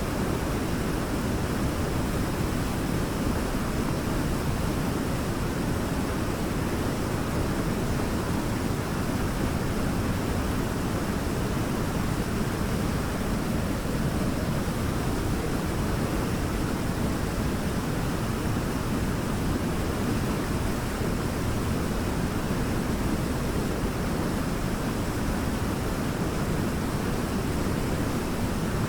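Waterfall: a steady, even rush of falling water, strongest in the low range, with no change.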